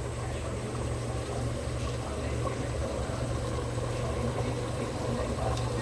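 Curry bubbling as it simmers in a pot, over a steady low hum.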